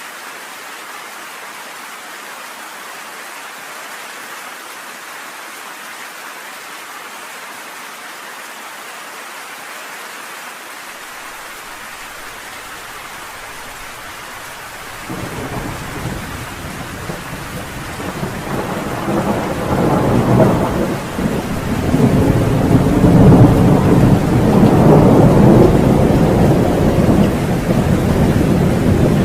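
Steady rain falling, then about halfway through a thunderclap breaks in suddenly and rolls on as a long, deep rumble that swells louder and carries on to the end.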